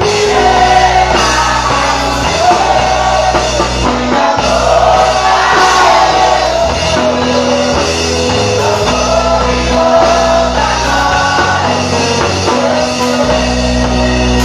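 Live church worship music: singers over instrumental accompaniment with sustained bass notes.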